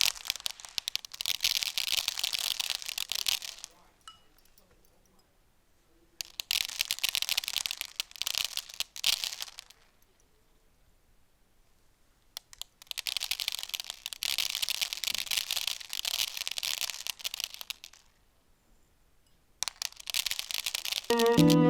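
Crackling, crumpling foley noise made by hand, in four bursts of a few seconds each with near silence between them.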